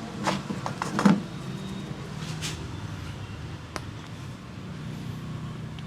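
Hands working a head and neck massage: a cluster of sharp smacks on skin, the loudest about a second in, a short rubbing rustle at about two and a half seconds, and one crisp click near four seconds, over a steady low hum.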